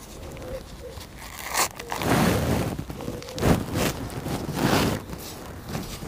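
Paper packet of henna powder rustling and crinkling as it is shaken out over a bowl by gloved hands, in several short bursts.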